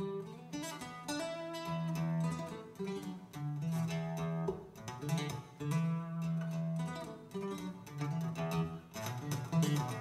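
Instrumental music with plucked guitar notes, played through a pair of Buchardt stand-mounted hi-fi speakers.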